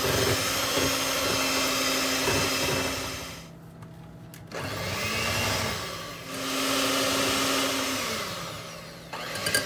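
Electric hand mixer running with its beaters in a thick cream cheese and butter frosting. About three and a half seconds in it drops away briefly, then comes back, and it dies down near the end.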